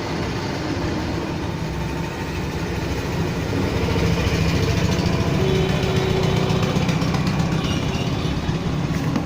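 Steady mechanical hum of a small motor or fan, growing a little louder about four seconds in.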